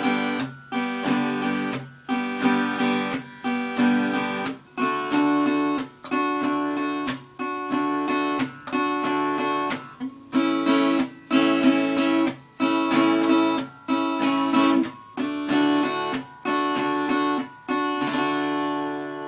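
Acoustic guitar strumming a chord progression in a steady rhythm, the chords changing every few seconds. Near the end the last chord is left ringing and fades away.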